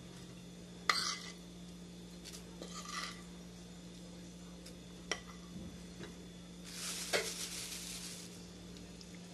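A metal spoon clinking and scraping on a plate as seasoning mix is scooped onto chicken, with a sharp clink about a second in. This is followed by a plastic bag crinkling for about a second and a half near the end. A low steady hum runs underneath.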